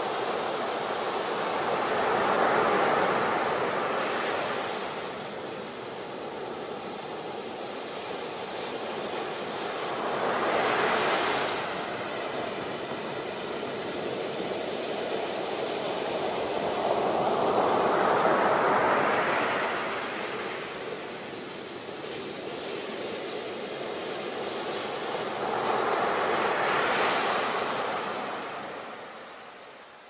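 Ocean surf: waves breaking and washing up a beach, a steady rushing noise that swells four times, about eight seconds apart, as each wave crashes.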